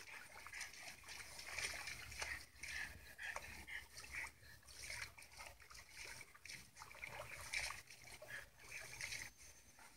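Faint, irregular splashing and trickling water from a video clip's audio, played through a small device speaker. It stops shortly before the end.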